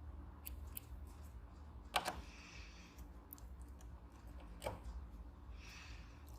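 A screw being driven into a wooden wall by hand, with scattered small clicks, brief scraping turns, and a sharp knock about two seconds in and a lighter one near the end.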